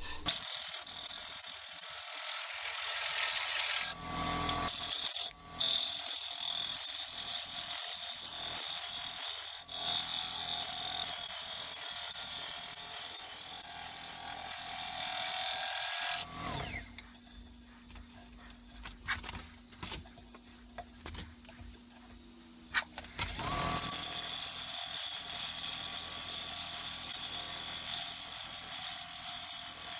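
Bowl gouge cutting a spinning wooden bowl on a wood lathe, a steady shearing hiss as shavings come off. About halfway through the cutting stops for several seconds, leaving a quieter steady hum, then starts again.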